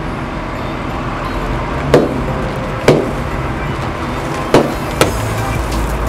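Road roller's engine running steadily as its steel drum rolls over sealed packets of cereal. The packets burst with four sharp pops: two about two and three seconds in, then two more close together near the end.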